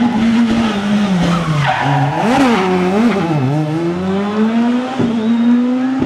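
Škoda Fabia rally car engine coming down in revs as it brakes into a corner, then several quick throttle blips on downshifts, then revving up steadily as it accelerates away. A brief tyre squeal comes in the middle of the corner, and a single sharp crack comes near the end.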